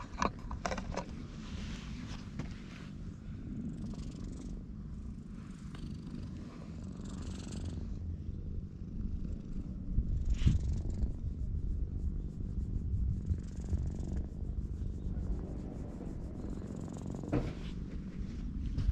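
An orange tabby-and-white cat purring steadily, close up, while being stroked, with brief rustles of a hand rubbing its fur.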